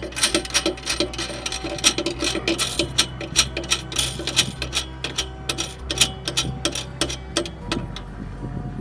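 Ratchet wrench clicking in rapid runs as it is worked back and forth to tighten a nut on a gun rack's roll-bar clamp; the clicks thin out near the end.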